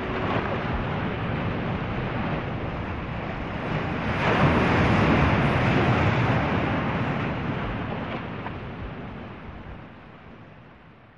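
Wind and breaking waves on a stormy open sea, a steady rushing that surges about four seconds in, then fades away toward the end.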